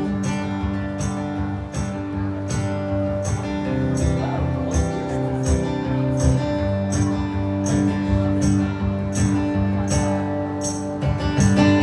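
Instrumental break of a country song played by a band: strummed acoustic guitar with a held melody line over it and a steady beat of percussion hits about twice a second.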